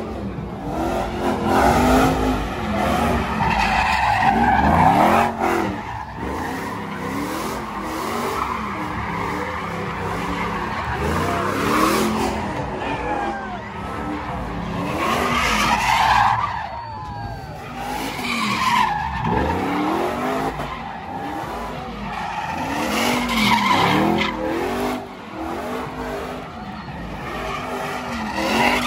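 Cars doing burnouts and donuts: engines revved up and down again and again, with tyres screeching on the pavement.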